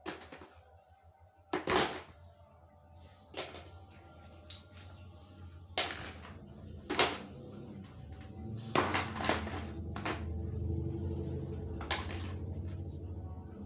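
Toys being handled and knocked together: about eight sharp knocks and clatters at uneven intervals, over a low steady hum.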